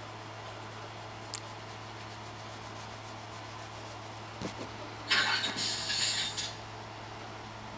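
A cat breathing heavily: one loud breathy rush lasting about a second and a half, about five seconds in, over a steady low hum.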